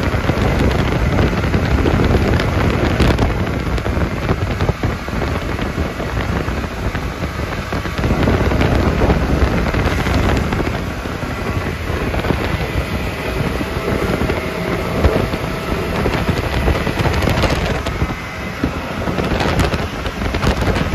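Open side-by-side UTV driving along a dirt road: its engine running under a rough, crackling rumble, with wind buffeting the microphone.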